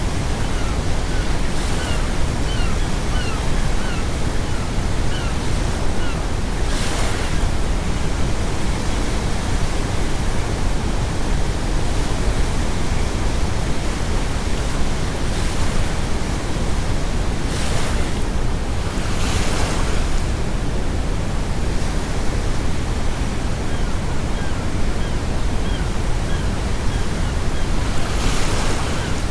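Steady brown noise mixed with ocean surf, with waves breaking in brighter rushes every several seconds. Gulls call in runs of short, repeated cries near the start and again toward the end.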